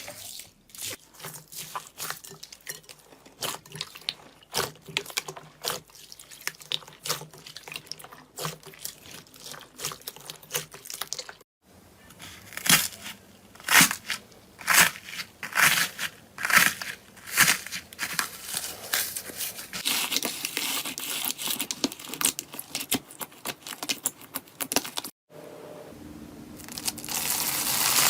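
Slime handled by hand, squeezed and poked, giving a rapid run of sharp crackling pops and crunches. The sound breaks off twice, and a denser hissing crackle builds near the end.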